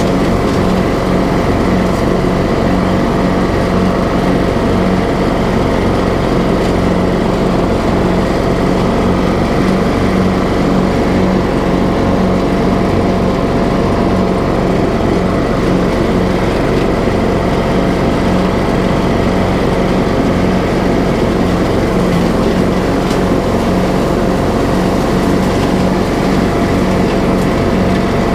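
TroyBilt riding lawn mower engine running steadily at an even pitch as the mower drives across the grass, with no stalling or cutting out.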